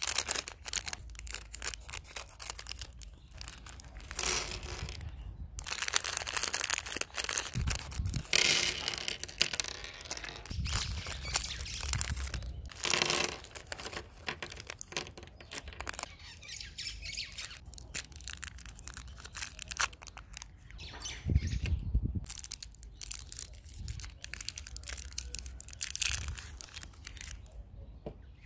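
Crinkling and tearing of plastic and foil candy wrappers as packets are opened and emptied, with candy pieces clicking into a wooden tray and a few dull thumps from handling.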